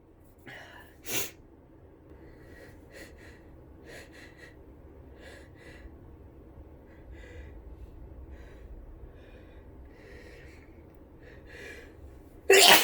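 Person with the flu sniffing and taking short, quiet in-breaths as a sneeze builds, with a sharp burst of breath about a second in. A loud sneeze comes near the end.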